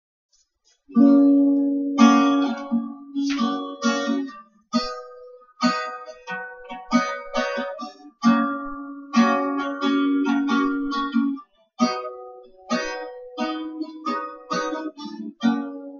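Acoustic guitar playing a song's intro, a run of picked notes and chords each ringing out, starting about a second in.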